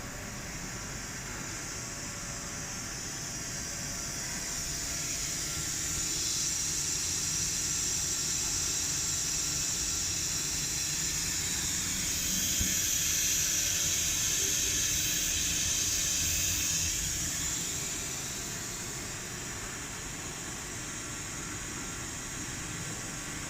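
CNC die-engraving machine running, a steady high hiss of spindle and cutting that grows louder for several seconds in the middle and then eases, with a few faint steady tones beneath.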